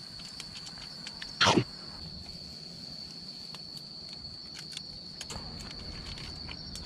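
Insects trilling steadily on one high note, with scattered faint clicks. One loud, short sound, falling in pitch, comes about a second and a half in.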